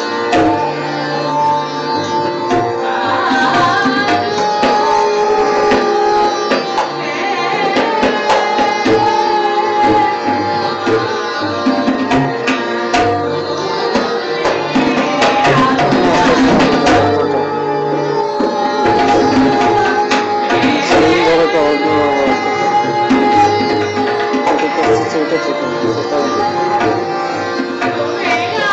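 Instrumental background music in an Indian classical style, with plucked strings over hand drums.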